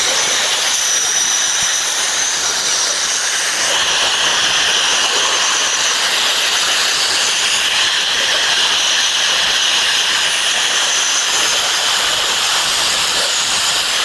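Electric welding arc hissing steadily without a break.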